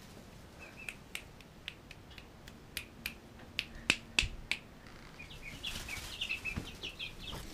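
Young chickens peeping in a quick run of short high chirps, thickest in the last two seconds. Sharp clicks and taps run through the whole stretch, the two loudest about four seconds in.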